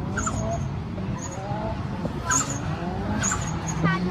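Drift cars on the circuit: engines revving with rising pitch, and tyres giving short squeals several times over a steady low rumble.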